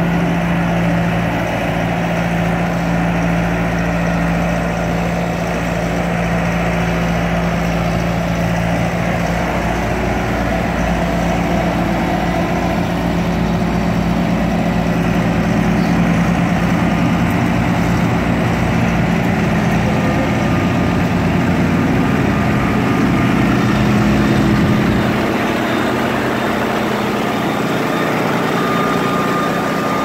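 Bobcat S300 skid-steer loader's diesel engine running as the machine drives and maneuvers over gravel. The engine note is steady for most of the time and changes pitch about three-quarters of the way through.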